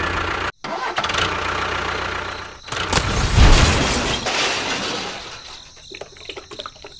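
Small motor of a homemade miniature tractor or bulldozer running, in a few abruptly cut pieces. It is loudest about halfway through, then fades into uneven rattling near the end.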